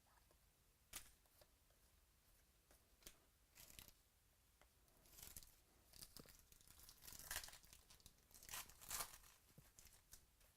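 Wrapper of a trading-card pack being torn open and crinkled by hand: a string of faint, short rips and rustles, busiest near the end.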